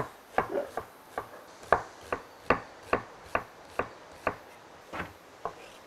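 Kitchen knife chopping vegetables on a cutting board: about a dozen sharp knocks at roughly two a second, stopping shortly before the end.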